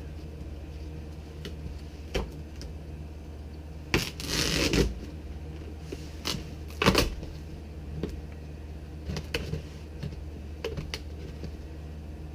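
Cardboard shipping box and its packing being handled: scattered rustles and light knocks, with a longer rustle about four seconds in and a sharper knock about seven seconds in.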